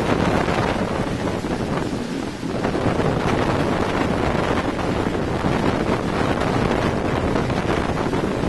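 Hurricane-force wind of Hurricane Charley, a loud, steady rush buffeting the microphone, with wind-driven rain. It eases briefly about two seconds in, then picks up again.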